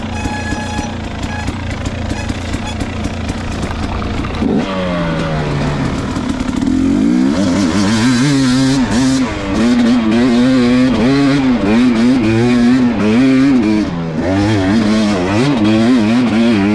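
KTM dirt bike engine running at low revs, dropping in pitch about four and a half seconds in, then from about seven seconds in revving up and down in quick surges again and again under load on a hill climb.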